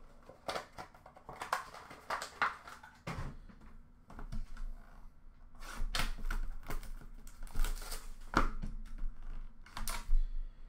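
Irregular clicks, taps and scrapes of hands handling and opening a small cardboard trading-card box and its packaging.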